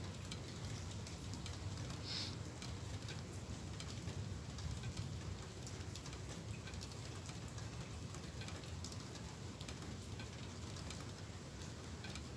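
Steady rain with drops pattering on nearby surfaces, over a low steady rumble. There is a brief higher sound about two seconds in.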